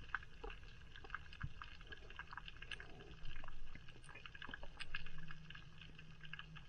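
Underwater reef ambience: a scatter of short, sharp clicks and crackles over a low, steady background, with low water rushes swelling about three seconds in and again about five seconds in.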